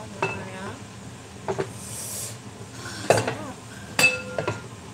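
Glass pan lid clinking against the rim of a metal frying pan about five times, each knock ringing briefly, as the lid is lifted and set back down. A brief hiss about two seconds in.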